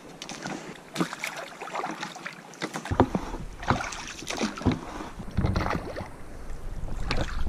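A single oar paddling an inflatable dinghy: irregular strokes of water splashing and dripping, with scattered knocks and clicks. A low rumble of wind on the microphone runs through the second half.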